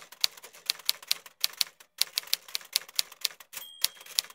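Rapid clacking keystrokes, about five a second, with a brief pause about two seconds in and a short ringing tone near the end.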